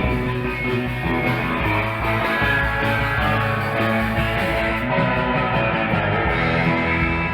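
Surf rock music with electric guitar, playing steadily.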